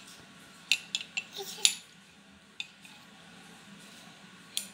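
A spoon clinking against a mug as a drink is stirred: a quick run of clinks about a second in, then a single tap and another near the end.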